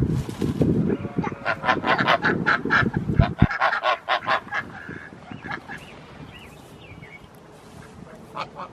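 A farm animal calling in a fast run of short, pitched calls, several a second, from about a second in until about four and a half seconds. After that it is quieter, with a few faint calls near the end.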